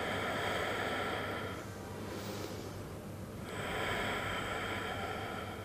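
A woman breathing slowly and audibly: two long breaths of about two seconds each, the second starting about three and a half seconds in, with a fainter breath between them.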